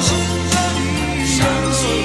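Karaoke pop music: a backing track with sustained bass notes, a steady drum beat and a melodic line.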